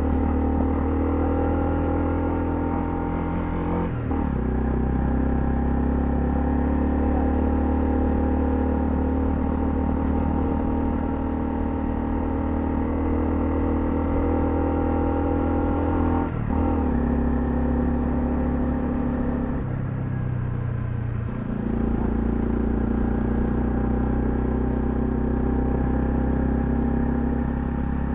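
Honda CL250 motorcycle engine running under way at a steady pace. Its note steps in pitch several times with gear changes, with a brief dip in the sound about 4 seconds in and again about 16 seconds in.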